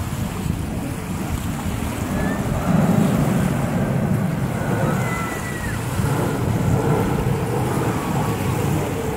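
Wind buffeting the microphone in an uneven low rumble, over small choppy waves lapping at the shore.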